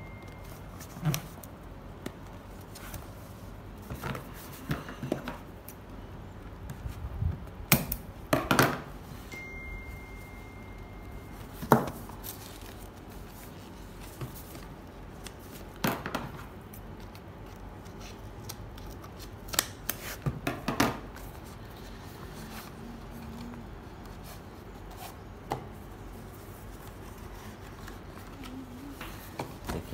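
Hands working open a sealed white paperboard smartphone box: irregular clicks, scrapes and rustles of the cardboard and its seal, with sharp snaps about 8, 12, 16 and 21 seconds in.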